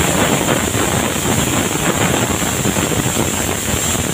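Aluminium pressure cooker venting steam through its whistle weight: a loud, steady hiss with a thin, high whistling tone on top, the sign that the cooker is up to pressure.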